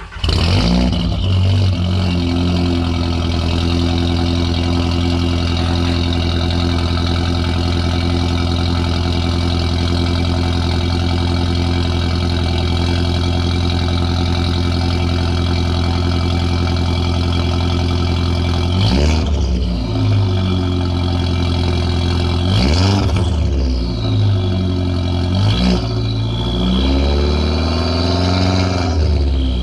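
Straight-piped exhaust of a Volkswagen Jetta MK4's turbocharged 1.8T four-cylinder, running through a 3-inch downpipe. It starts up and idles steadily, then is revved a few times in the last ten seconds, each rev rising and falling back to idle.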